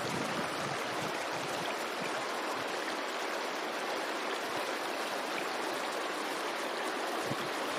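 Steady rush of water flowing through a beaver dam of piled sticks, an even hiss with no change in level.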